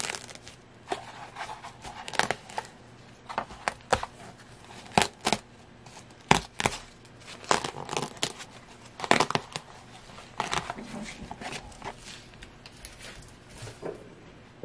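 Clear water-soluble stabilizer film being pulled and torn off embroidered minky fabric: irregular crinkling and tearing in short spells with brief pauses, and a single heavier knock about six seconds in.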